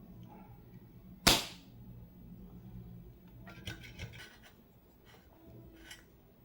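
Spring-loaded desoldering pump firing once with a sharp snap about a second in, sucking solder from a keyboard switch's joint; a few lighter clicks and rustles follow.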